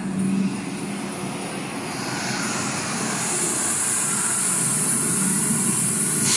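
Fighter-jet roar sound effect from a performance soundtrack, played over a hall's loudspeakers, a rushing noise that swells steadily louder from about two seconds in, like a jet approaching.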